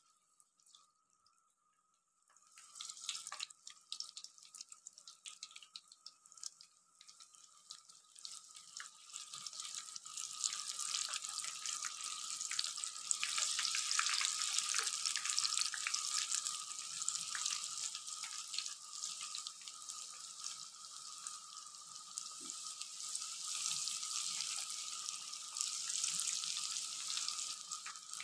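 Batter-coated okra deep-frying in hot ghee in a wok: a sizzle full of small crackling pops. It starts faintly about two seconds in and grows fuller after about ten seconds, as more pieces go into the oil.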